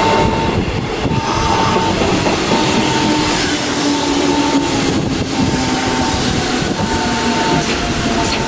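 Sanyo Electric Railway door-cut warning device beeping: a steady high electronic beep repeating about once every second, which warned the conductor to switch on the door cut. Under it a train runs alongside the platform, its low whine slowly falling in pitch.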